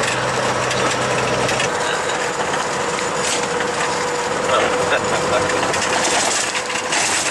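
Cab noise of a log truck on the move: the engine running under a steady rush of road and rattle noise, with a low hum that drops away about a second and a half in.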